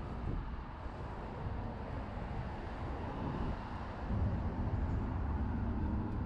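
Outdoor city ambience: a steady low rumble that grows louder about four seconds in, with a faint engine-like hum.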